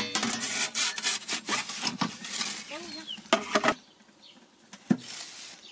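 Aluminium pizza peel scraping across the baking stone of an Ooni Fyra 12 pizza oven as it is pushed under a cooked pizza and drawn back out, a rough rasping slide of about three and a half seconds. A single sharp knock follows near the end.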